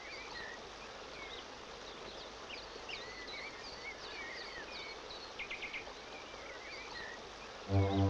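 Wild birds chirping and whistling in short calls that slide up and down, with a few quick trills, over a steady background hiss. Near the end, music with sustained brass-like chords comes in, louder than the birds.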